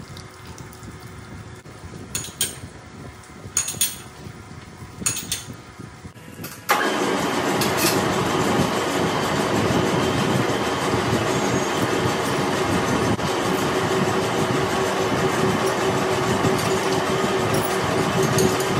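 Quiet trickle of coolant with a few short clicks, then about seven seconds in the loud, steady running of a manual lathe cuts in suddenly, with a steady hum over the noise. The lathe is turning a heavy steel spindle while coolant sprays onto it.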